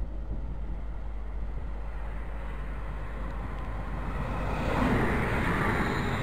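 British Rail Class 350 Desiro electric multiple unit approaching and drawing alongside the platform, its running noise growing clearly louder from about four seconds in.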